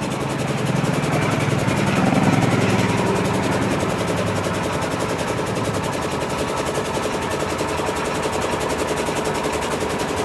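Truck engine idling steadily, a little louder around two seconds in before settling back.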